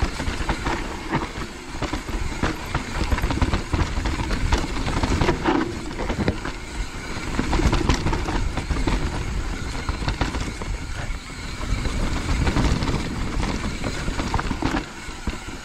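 Mountain bike descending a wet, rooty trail: tyres rumbling over dirt and roots while the bike rattles and clatters with many sharp knocks as it hits roots and small drops.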